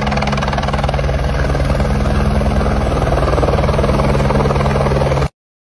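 Helicopter flying in close, its rotor chopping steadily over a low engine hum; the sound cuts off suddenly about five seconds in.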